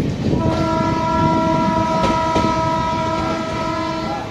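An Indian passenger train's locomotive horn sounding one long blast of several notes at once, starting about half a second in and cutting off just before the end, over the steady rumble and faint clickety-clack of the coaches running on the track.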